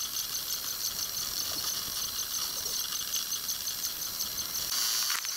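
Geeetech 3D printer with a mixing print head at work: its cooling fans and stepper motors give a steady, high-pitched whir as the head moves over the print.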